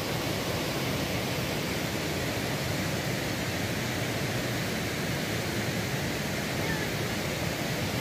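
Floodwater of a swollen river rushing over rocks in rapids: a steady, even rushing of water.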